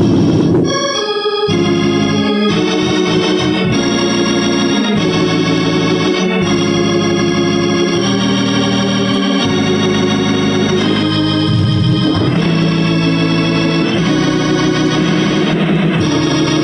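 Two-manual console organ played with both hands: sustained full chords that change every second or so, with the bass briefly dropping out about a second in.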